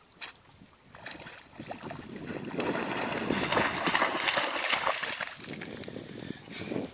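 A dog bounding through shallow lake water toward the shore, splashing; the splashing grows louder to a peak midway and dies away near the end as it reaches the bank.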